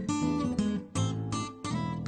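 Background music of an acoustic guitar strumming chords.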